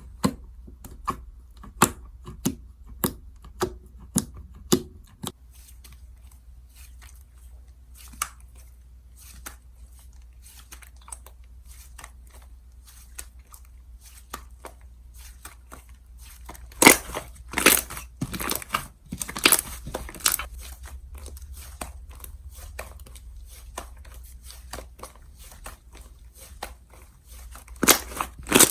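Slime being handled and pressed by hand, giving sharp clicks, pops and crackles: a regular run of single pops at first, then scattered ones, and dense crackling bursts about two-thirds of the way in and again at the end, over a low steady hum.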